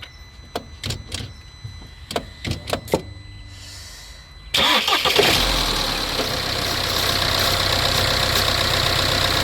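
A few sharp clicks, then about four and a half seconds in the Toyota Avensis engine starts suddenly and runs on steadily and loudly. The turbocharger has failed, with its impeller shaft broken.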